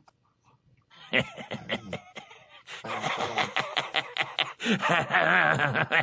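A man slurping and gulping a sip of coffee from a mug, then a drawn-out, wavering vocal noise from about three seconds in.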